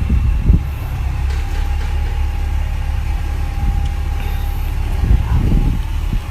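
A heavy engine running steadily with a low, even rumble, with two brief louder bumps, about half a second in and again near the five-second mark.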